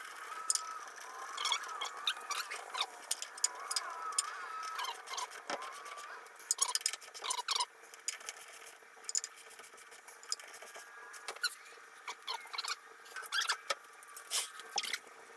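Irregular metallic clicks and rattles of hand-tool work as a wheel is remounted and its lug nuts are fitted and tightened, with some faint high chirps in the first few seconds.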